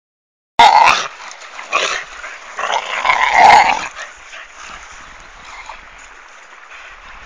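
Staffordshire bull terriers vocalising as they play-fight over a stick, in three loud bursts within the first four seconds, then much quieter.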